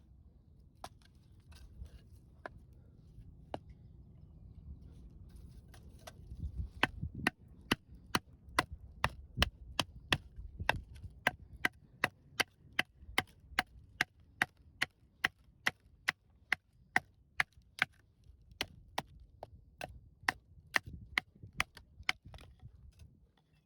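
Knife chopping on a wooden cutting board: a few scattered strokes, then a steady, even run of sharp chops, about two to three a second.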